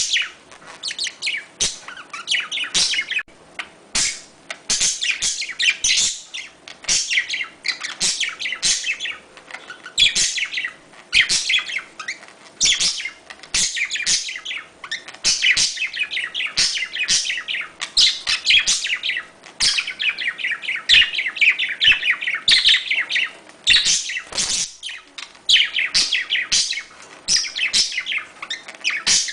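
Budgerigars chirping and warbling without pause: a dense chatter of rapid, overlapping high chirps, the kind of budgie chatter played to get a pair into breeding condition.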